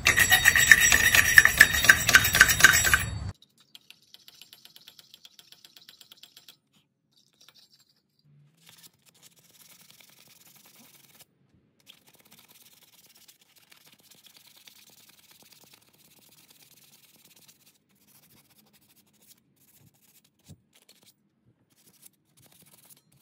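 Wire brush scrubbing rust off a car's wheel hub, a loud rapid scraping that stops abruptly about three seconds in. After that only faint scattered clicks and ticks.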